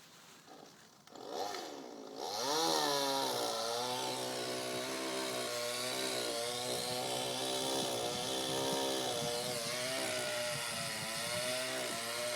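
Chainsaw starts up with a short rising rev, then runs at high speed from about two seconds in, its pitch dipping and recovering as the chain works through wood.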